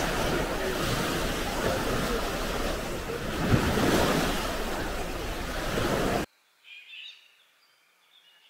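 Baltic Sea surf, with wind on the microphone, as a steady rushing noise that cuts off abruptly about six seconds in.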